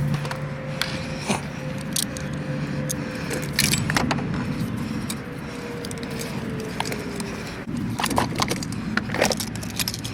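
Scattered light metallic clinks and knocks over a steady low rumble.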